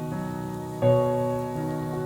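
Background piano music, slow chords that ring out and fade between strikes.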